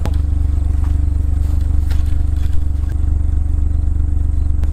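Side-by-side utility vehicle's engine idling with a steady low hum, with a few faint clicks and clatters over it.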